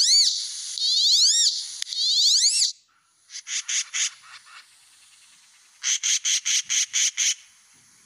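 Wood duck calling: thin whistled squeals that rise and then fall in pitch, several in quick succession. Then a yellow-billed magpie's short clipped calls, a group of about four notes and, a little later, a faster run of about eight.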